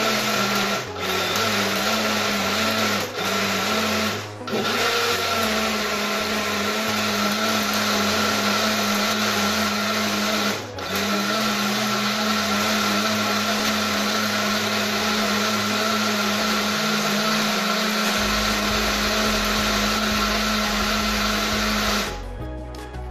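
Personal bullet-style blender running steadily, blending spices with water into a paste. The motor drops out briefly a few times and stops near the end.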